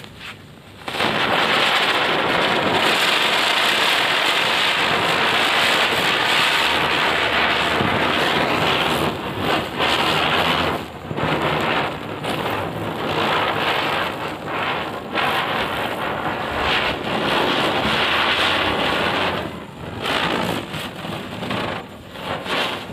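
A Cock brand ground chakkar (ground-spinner firework) catches about a second in and spins with a loud, steady hiss of spraying sparks. In the second half the hiss turns uneven and sputtering, with short breaks.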